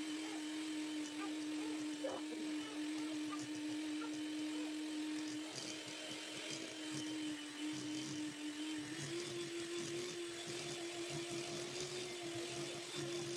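Electric hand mixer running steadily, its beaters mashing boiled potatoes in a glass bowl; the motor's hum steps up slightly in pitch about nine seconds in.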